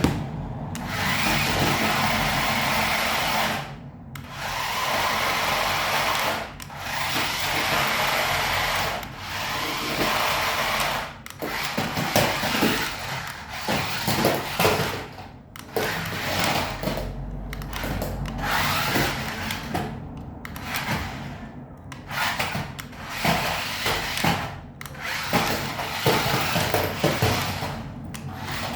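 Toy all-terrain RC car's small electric motor and gears whirring in repeated stop-start runs of a few seconds each, becoming shorter and choppier about halfway through.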